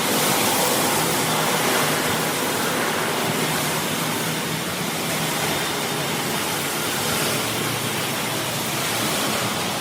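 Automatic car wash machine running, a steady loud rushing hiss of spray or air over the car, with a faint low machine hum underneath.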